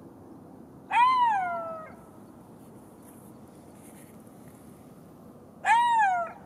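Golden jackal giving two short calls about five seconds apart, each about a second long and rising then falling in pitch.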